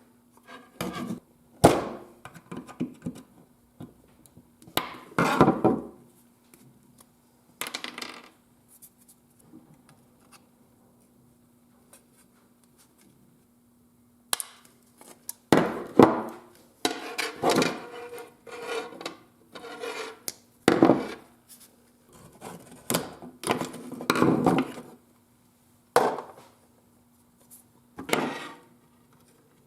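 Replacement interior door handle and its latch rod being handled and fitted by hand: irregular knocks, clicks and rubbing of plastic and metal parts, with a quiet stretch in the middle. A faint steady hum runs underneath.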